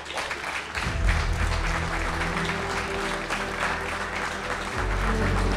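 A room full of people applauding with steady clapping, with music playing underneath.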